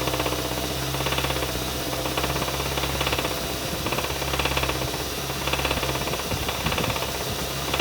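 2015 Kia Sorento 2.4-litre four-cylinder engine running with a fast, even lower-end knock that keeps up steadily: the sound of a worn, failing connecting-rod bearing.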